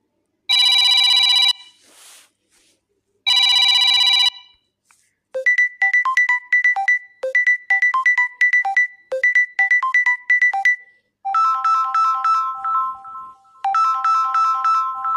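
Samsung Galaxy A15 5G ringtones playing one after another: two long buzzing rings about three seconds apart, then a quick repeating tune of short plucked notes, then a different tune of rapid chiming notes in two phrases.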